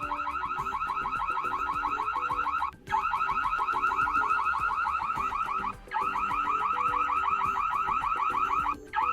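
Xiaomi Smart Camera C100's built-in alarm siren, switched on remotely: a loud electronic warble that repeats rapidly, in blocks of about three seconds with brief breaks between them.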